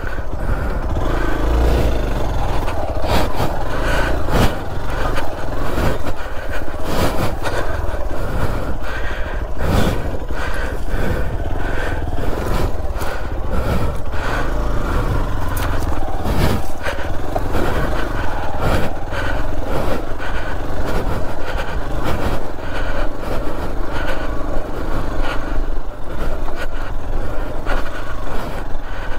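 Hero XPulse 200 4V single-cylinder dual-sport motorcycle running while riding over a rough off-road track, with frequent knocks and clatter from the bike jolting over the ground.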